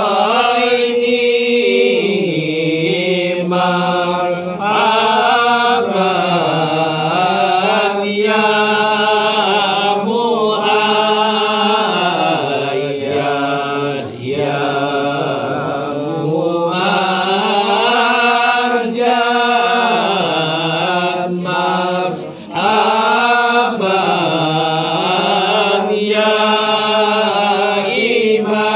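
A group of men chanting zikir and selawat in unison, unaccompanied, in long melodic phrases with brief breaths about 4, 14 and 22 seconds in.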